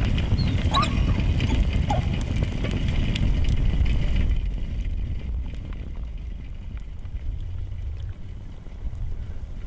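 Wind rumbling on the microphone, with scattered small clicks and a couple of short whines in the first few seconds. About four seconds in, the sound drops to a quieter, deeper wind rumble.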